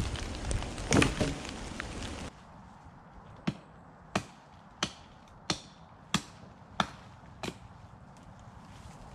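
Logs dropped with a clatter onto a woodpile about a second in, over a steady hiss of rain. After a sudden cut, seven sharp, evenly spaced knocks follow, about three every two seconds.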